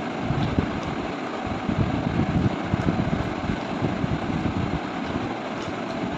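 A continuous low, uneven rumbling noise, with a few faint clicks of a steel spoon against a plate.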